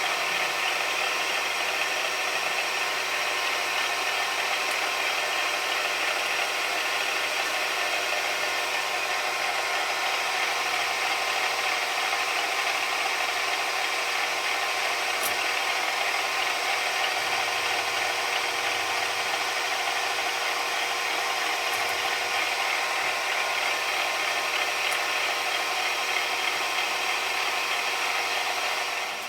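Small machine tool running steadily, its motor and spindle turning while holes are drilled through small brass parts, with a light mechanical rattle over the hum.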